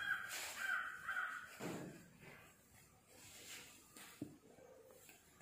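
A crow cawing three times in quick succession, followed by a brief low sound and, about four seconds in, a single sharp knock.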